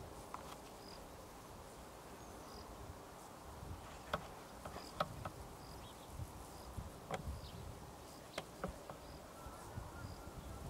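Faint insect chirping: short high chirps repeating about every half second to a second, over a low rumble, with a few sharp clicks in the middle.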